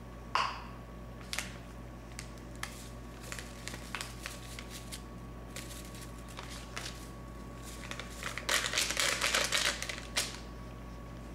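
A paper seasoning packet crinkling as its dry mix is shaken into a glass measuring bowl. About a third of a second in there is a ringing knock on the glass, then scattered crinkles and clicks, and a dense spell of crackly rustling near the end.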